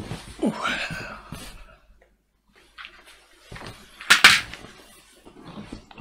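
A clear plastic box full of small tactile push-button switches being set down on a silicone bench mat. About four seconds in there is a short loud rattle and knock as the box lands and the switches shift inside. Before it, a brief rustle of handling lasts about a second and a half.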